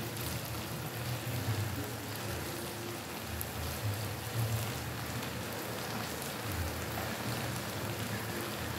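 Small shrimp frying in a wok on a gas stove: a steady sizzling hiss.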